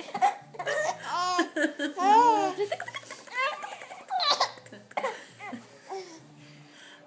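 Baby laughing while being tickled: bursts of giggles and chuckles whose pitch swings up and down, dying away near the end.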